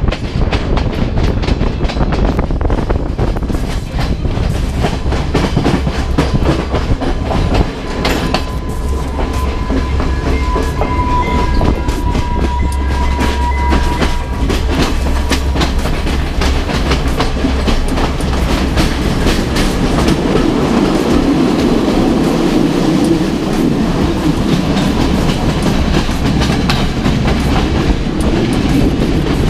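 Passenger train running along the line, heard from an open carriage window: a steady rumble with rapid clicking of the wheels over the rails. A thin high tone sounds for several seconds near the middle.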